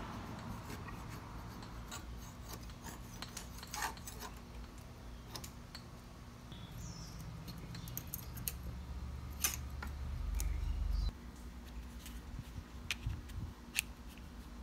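A hand-held blade scraping and cutting old expanding foam and caulk out of the gap between a door frame and brick, heard as scattered short scrapes and clicks. A low rumble swells from about eight seconds in and cuts off suddenly about three seconds later.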